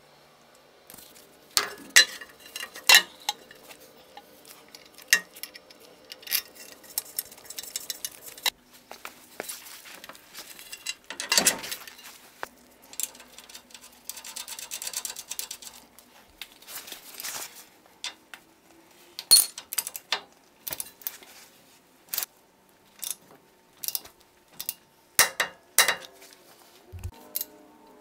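Steel bolts and hand tools clinking and clanking against metal in irregular sharp knocks, as a lower ball joint is bolted up to a truck's steering knuckle.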